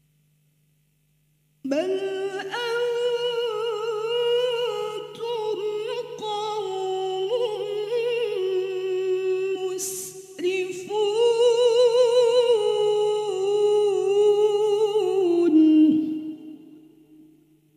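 A woman reciting the Quran in melodic tilawah style: a long, ornamented phrase of held, wavering notes beginning about two seconds in, broken by a quick breath near the middle, then ending on a falling note that fades away. A faint steady low hum runs underneath.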